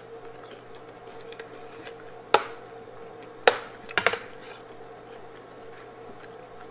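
A person eating close to the microphone: chewing, with a few sharp clicks of a metal spoon scooping chana masala off a plate, three of them between about two and four seconds in, over a faint steady hum.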